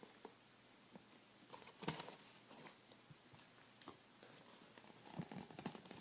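Near silence, with a few faint clicks and rustles of plastic tubing being handled and pushed into a plastic container, the clearest click about two seconds in.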